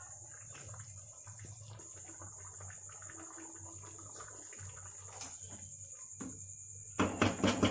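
Crickets chirring steadily in a high, unbroken tone, with a low hum under it. A quick run of sharp knocks comes near the end.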